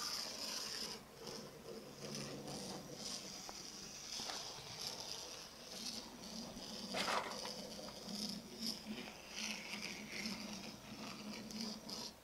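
Small electric motors and gears of Faller Car System model cars whirring as they drive, a steady high whine, with a single knock about seven seconds in.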